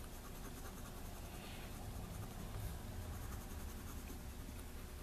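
A brown colored pencil scratching on paper in quick, repeated shading strokes.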